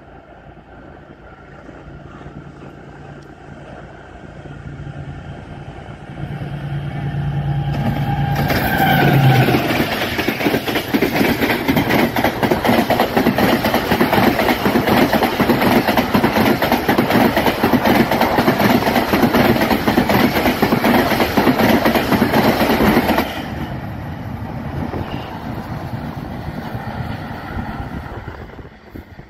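Express passenger train passing close by on a steel-girder railway bridge. The diesel-electric locomotive's engine swells as it approaches, and its pitch drops as it goes past. A dense, rapid clatter of coach wheels over the rails and bridge follows for about fourteen seconds, then stops abruptly and leaves a fading rumble as the train moves away.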